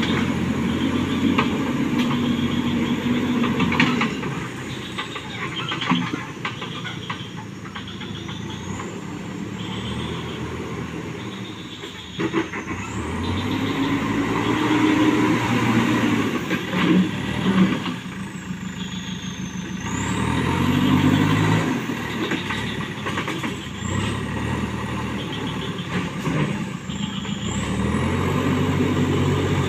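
JCB backhoe loader's diesel engine running under load, its pitch rising and falling in several rev-ups and let-offs as the machine drives and works.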